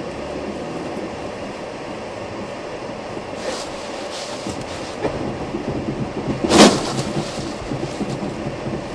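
Car driving through water-jet spray on a wet practice track, heard from inside the cabin: steady tyre and road noise with water spattering against the windscreen. A short, loud burst of noise comes about six and a half seconds in.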